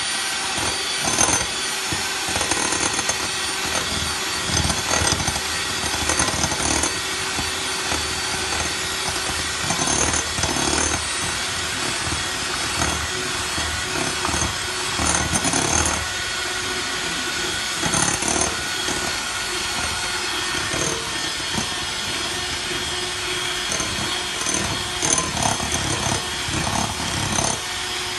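Electric mixer running steadily at speed with a constant motor hum, its beaters whirring through sponge cake batter in a bowl with an uneven, churning wash of noise.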